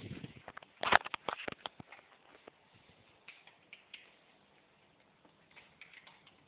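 Light clicks and taps of a kitten's paws and claws on a laptop, a quick flurry in the first two seconds with the sharpest click about a second in, then a few scattered faint ticks.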